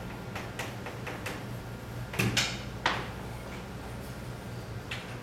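Chalk tapping and scraping on a blackboard as characters are written: a string of short strokes, the loudest about two to three seconds in.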